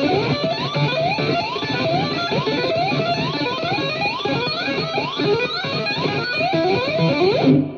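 Guitar playing a repeating figure of quick upward pitch slides, about two a second, that stops abruptly near the end and leaves a short fading ring.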